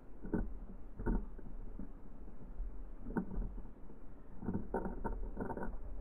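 Black-capped chickadees pecking and hopping on a wooden platform feeder among sunflower seeds: scattered knocks and taps on the wood, then a quick run of taps near the end.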